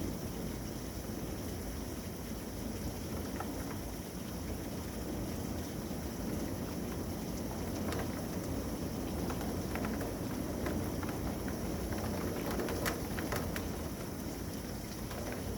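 Strong wind ahead of an approaching storm, blowing steadily and rumbling against the microphone, with a few faint ticks partway through.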